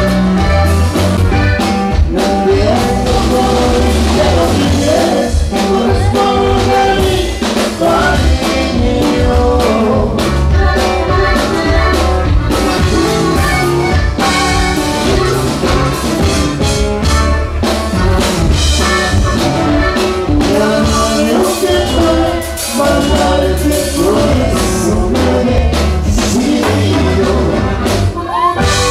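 Live norteño band playing: an accordion carries the melody over acoustic guitar, electric bass and a drum kit, with a steady dance beat.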